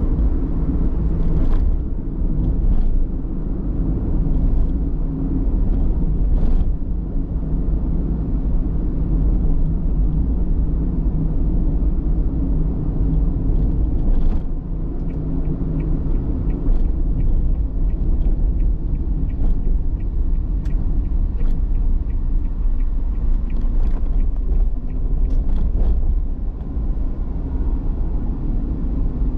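Car driving along a road: a steady low rumble of engine and tyres, with scattered faint clicks and knocks.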